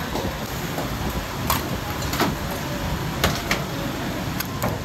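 Busy roadside ambience: a steady traffic rumble and hum, with about half a dozen sharp clicks or knocks scattered through it.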